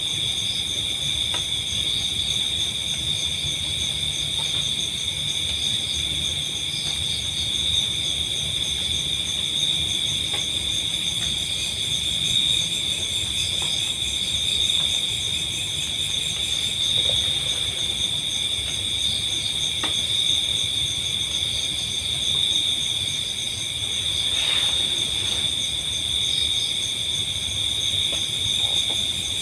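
Steady chorus of crickets and other insects: several high, continuous trills layered together without a break.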